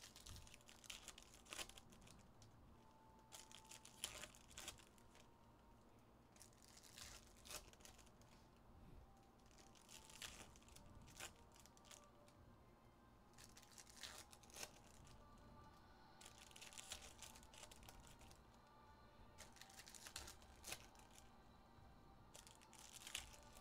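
Faint crinkling and tearing of trading-card pack wrappers being ripped open and handled, in short bursts every few seconds.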